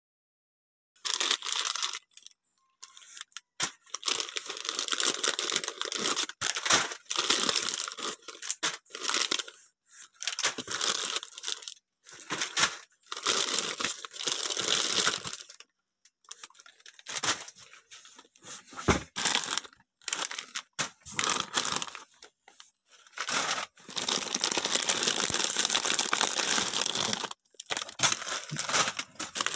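Plastic snack packets crinkling and rustling as they are handled and shifted in a cardboard box, in irregular bursts with short silent gaps between.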